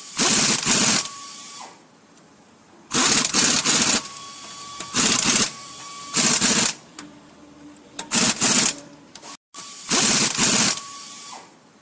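Bursts of rapid mechanical rattling, about six of them, each up to a second long. A faint steady high tone sits in the gaps between them.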